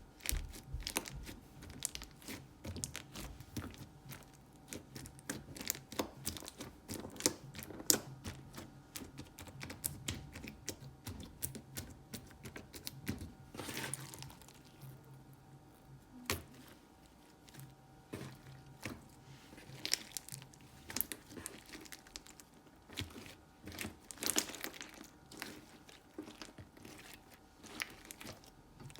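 Slime being squeezed and pressed by hand, giving many small irregular sticky pops and crackles, with a quieter lull about halfway through.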